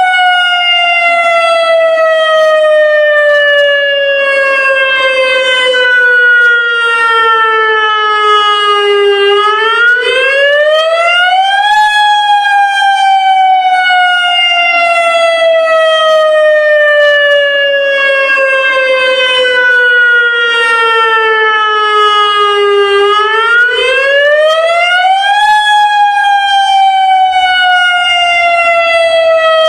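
Federal Signal Modulator electronic lahar warning siren sounding its monthly test. Its loud, many-overtoned tone falls slowly in pitch for about nine seconds, then sweeps quickly back up over two or three seconds, and the cycle repeats twice.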